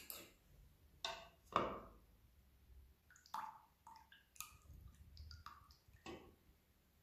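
A small metal spoon stirring fresh yeast into water in a plastic measuring jug, with a series of irregular light taps and clinks against the jug and some swishing of water. The yeast is being dissolved in the water for a dough.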